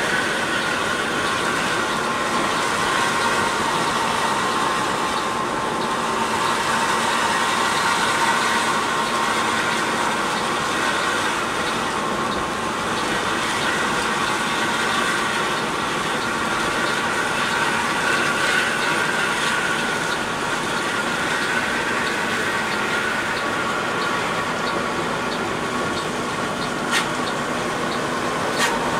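Mercedes-Benz 1626 coach driving at a steady speed: a constant road and engine drone with a steady higher hum. Two brief clicks come near the end.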